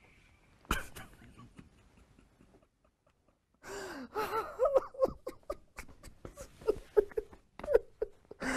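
A man sobbing uncontrollably: after a single thump about a second in, he breaks into gasping sobs from about three and a half seconds on, in short, catching cries with sharp breaths between them.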